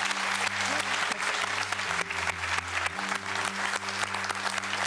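Studio audience applauding, steady and dense, with a low steady tone underneath.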